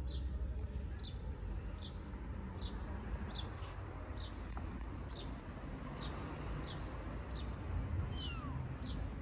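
Small kittens mewing. Behind them, a short high falling chirp repeats over and over, about every three-quarters of a second.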